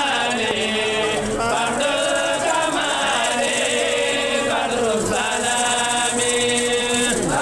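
A group of voices chanting together in long, drawn-out notes that glide from one pitch to the next.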